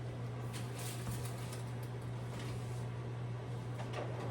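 A steady low hum with a few faint clicks and rustles of kitchen handling, the loudest near the end.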